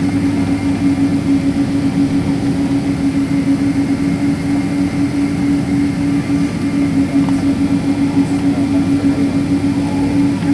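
Cabin noise of a Boeing 777-200 airliner heard from a window seat: a steady engine drone with a constant hum and rumble throughout.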